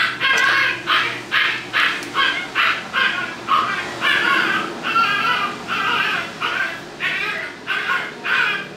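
An animal calling over and over in quick succession, two or three sharp calls a second without a break.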